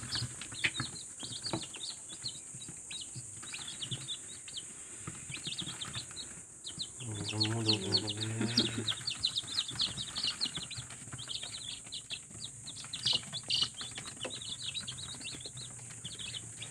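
Newly hatched chicken chicks peeping continuously, many short high chirps overlapping. A brief lower-pitched voice sounds about seven seconds in.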